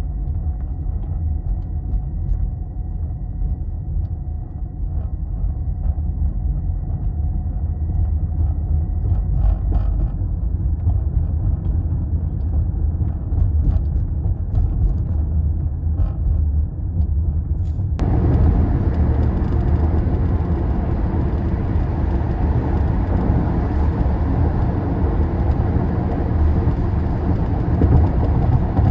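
Steady low road and drive rumble inside a moving Toyota Prius Prime, with scattered faint clicks and rattles from the car's interior. The car owner reports an intermittent rattle that the dealer could not reproduce. About two-thirds of the way through, the sound shifts abruptly to a brighter, louder road noise.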